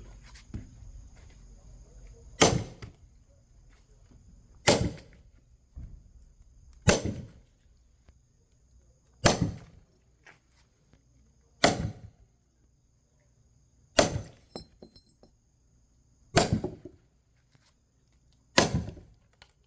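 Axe chopping into a thick firewood log to split it: eight heavy, evenly paced strikes, about one every two and a half seconds.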